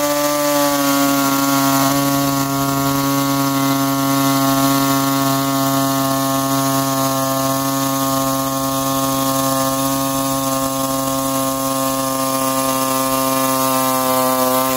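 Pneumatic reciprocating air saw cutting through a plastic car bumper cover. It starts suddenly, comes up to speed within the first second, then runs with a steady buzzing tone over hiss and stops near the end.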